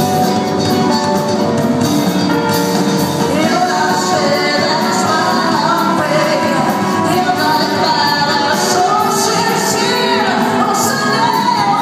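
Pop band with a string orchestra and drum kit playing live, a woman singing into a microphone from about three seconds in.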